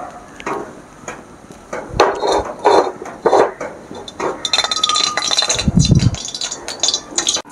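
Iron wok (cheenachatti) clinking and knocking against a gas stove's pan support as it is set down, then hot oil crackling and spitting in it, with a brief low thud about six seconds in.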